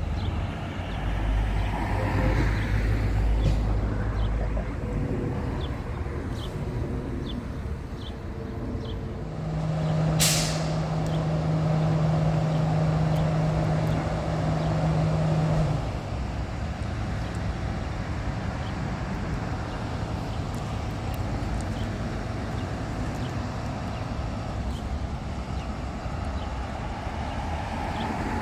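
Ambulance engine running in the station bay, with a short sharp hiss of its air brakes releasing about ten seconds in. A steady hum lasts about six seconds around it, and there is a low rumble in the first few seconds.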